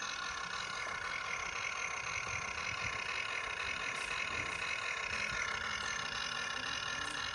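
A radio-controlled model truck or excavator running with a steady, engine-like hum that holds an even pitch.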